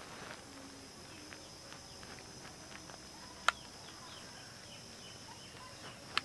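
A knife slicing through peeled dragon fruit on a paper plate, with soft ticks and two sharp clicks, one about three and a half seconds in and one near the end, against a steady high insect drone and faint bird chirps.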